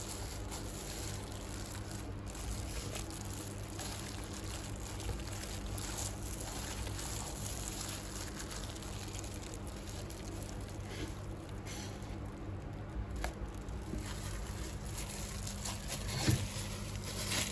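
Wet squelching and trickling as a hand in a plastic glove squeezes and gathers freshly churned butter out of the buttermilk in a blender jar, over a steady low hum.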